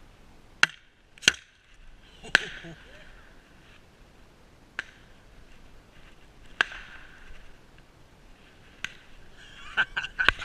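A series of sharp cracks, each with a short ringing echo, spaced irregularly a second or more apart, then several in quick succession near the end.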